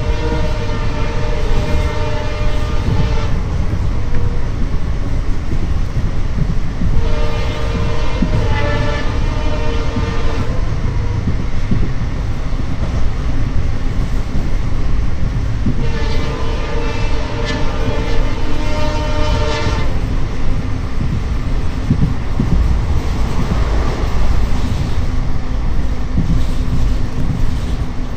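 Horn of the twin EMD WDP4 diesel locomotives sounding three long multi-tone blasts of about three to four seconds each, several seconds apart, over the steady low rumble of the running train and its wheels on the rails.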